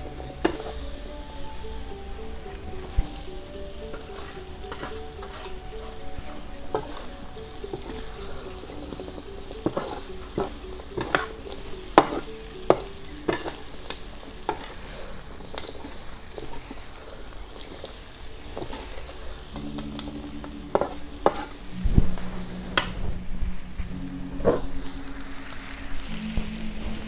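Tempe, turkey berries and dried anchovies sizzling in a steel wok while a metal spatula scrapes and knocks against the pan in a stir-fry.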